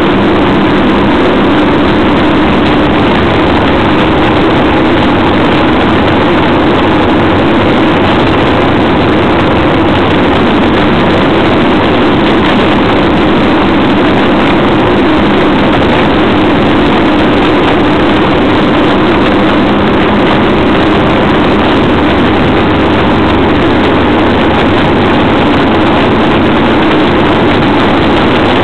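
A vehicle cruising at steady highway speed, heard on board: the engine runs at an even pitch under a loud, constant rush of wind and road noise.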